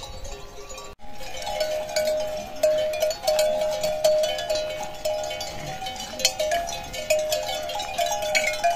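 Many bells on grazing water buffalo and cattle clanking and ringing together as the animals move their heads, a dense jangle of overlapping tones with quick clinks. The sound starts abruptly about a second in.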